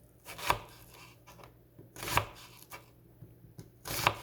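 Kitchen knife cutting onion on a cutting board: three short chopping strokes about a second and a half apart.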